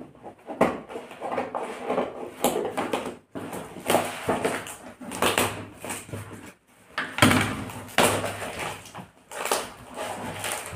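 Brown packing tape and cardboard being torn off a taped-up parcel by hand: irregular ripping and crinkling in bursts, with several sharp rips.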